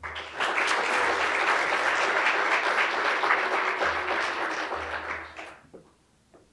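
Audience applauding for about five seconds, then fading out.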